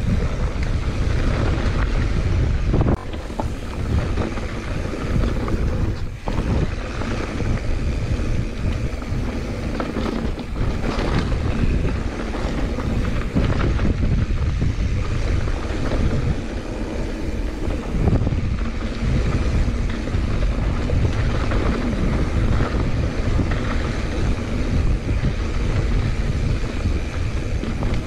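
Wind rushing over the microphone of a mountain bike descending a dry dirt trail, with the tyres rumbling over the dirt; a few knocks from bumps in the trail stand out now and then.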